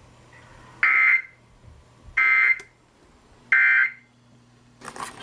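Three short, screechy bursts of Emergency Alert System digital data tones, about a second apart: the end-of-message code sent after a broadcast weather warning. A brief noisy burst follows near the end.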